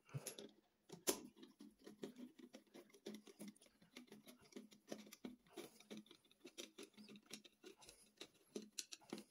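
Faint, irregular small clicks and scrapes of a hand screwdriver turning screws into the metal cover plate of a concealed shower mixer, with one sharper click about a second in.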